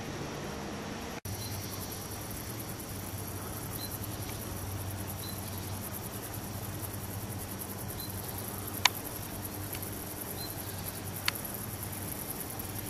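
Steady high-pitched chirring of insects in an alpine meadow over a faint low hum, broken by two sharp clicks about nine and eleven seconds in.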